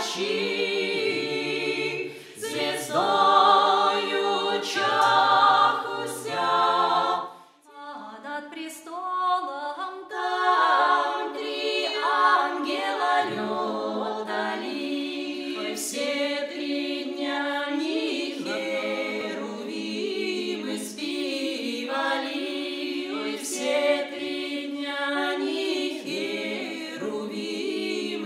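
Small folk vocal ensemble, women's voices with a man's, singing a Slavic nativity carol a cappella in close harmony. The singing drops away briefly about seven and a half seconds in, then resumes.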